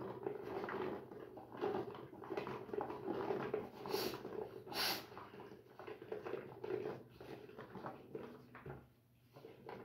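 Peeled garlic cloves tipped from a plastic bowl, making an irregular patter of small knocks and rattles, with two sharper clacks about four and five seconds in.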